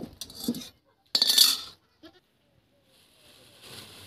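A goat bleats once, loudly, about a second in. It is the loudest sound, with a few quieter short sounds just before it.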